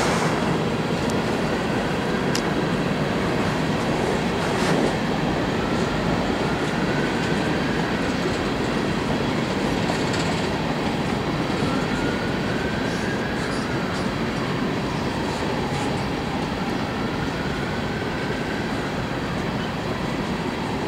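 Empty coal hopper cars rolling past on steel wheels: a steady rumble and rattle, with a couple of sharp clanks in the first five seconds. A faint wheel squeal wavers up and down several times.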